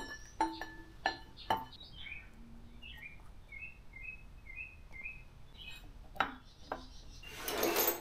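A few sharp metal clinks with a short ring in the first second and a half, as a camshaft's lobes and journals knock against the cam bearings while it is slid into a Ford 351 Windsor cast-iron block. A string of short high bird chirps follows in the middle, with a couple more clicks and a rustle near the end.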